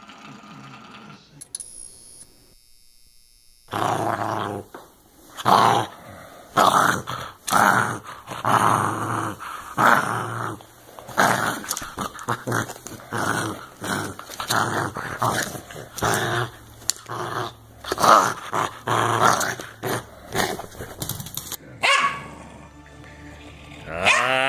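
A dog growling with short, harsh barks over and over, about one or two a second, while guarding a chew bone. The growling starts about four seconds in and stops a couple of seconds before the end.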